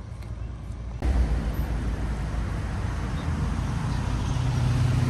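Steady road-vehicle rumble with engine and road noise, starting abruptly about a second in.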